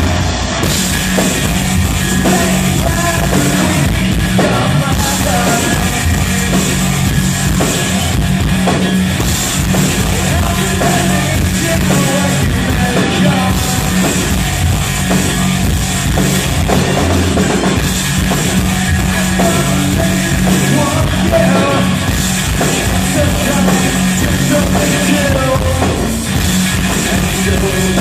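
A rock band playing loud and steady: a drum kit, heavy electric guitars and a sung vocal line.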